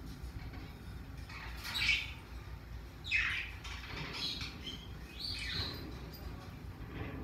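Pacific parrotlet chirping: a handful of short chirps, several sliding down in pitch, the loudest about two seconds in.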